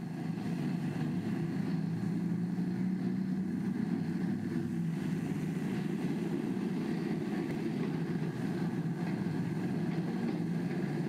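Steady low mechanical rumble that holds level throughout, with no clear rhythm or events.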